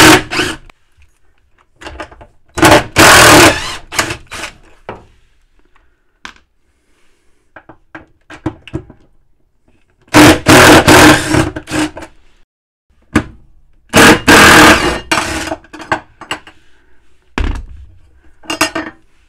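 DeWalt cordless drill-driver running in several short bursts of one to two seconds each, with a steady motor whine, backing out the screws around the rear plate of a washing machine tub. Small clicks and scrapes of handling come between the runs.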